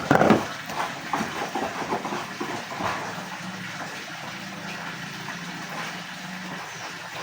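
Water running and splashing into a container as it fills, with a steady low hum underneath.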